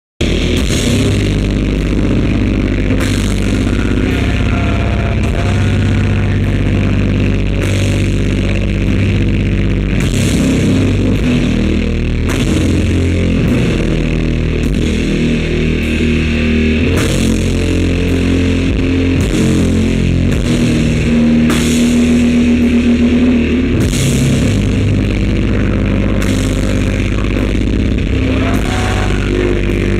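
Live heavy rock band playing loud, with distorted guitar and bass and drums, crash cymbals hitting every second or two. The recording is muddy and bass-heavy, a very bad sound.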